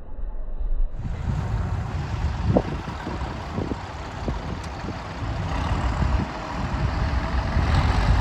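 A vehicle engine running steadily, with a dense low rumble and a few short knocks.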